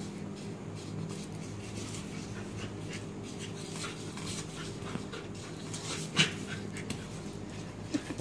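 Labrador puppy panting and snuffling as it paws and noses at a beetle on a tile floor, with one short, sharp loud sound about six seconds in and two smaller ones near the end.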